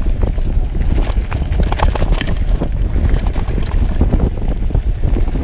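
Wind buffeting the microphone while a Trek X-Caliber 9 29er hardtail mountain bike rolls downhill on a loose gravel dirt track, its tyres crunching over stones and the bike rattling and clicking over the bumps.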